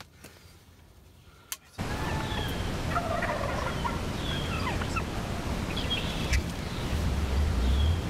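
Wild turkeys gobbling and calling close by, with many short calls over a low rumble. The first two seconds are quiet apart from a single click, then the birds come in suddenly much louder.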